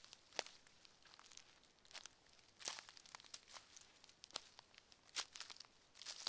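Footsteps on the forest floor, faint crunching and crackling under each step at a steady walking pace of roughly one step a second.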